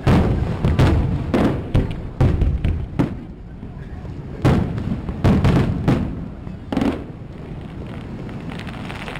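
Aerial firework shells bursting in a rapid run of booms and cracks, then a lull around three seconds in, then another run and a last bang near seven seconds.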